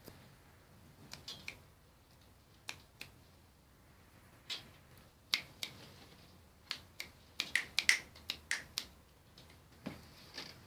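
A series of about twenty sharp, irregular clicks and taps, bunched in quick runs and loudest a little past the middle.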